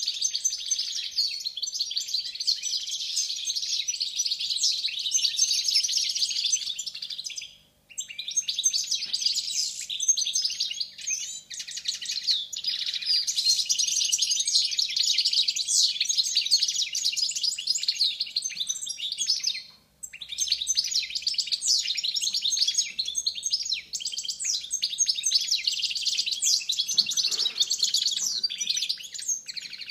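Caged Balkan goldfinch (Carduelis carduelis balcanica) singing a rapid, continuous twittering song that breaks off briefly twice, about 8 and 20 seconds in.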